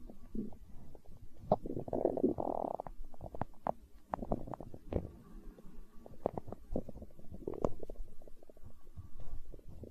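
Human stomach gurgling and rumbling: a run of quick wet pops and gurgles, with a longer gurgle about two seconds in. These are the hunger sounds of an empty stomach.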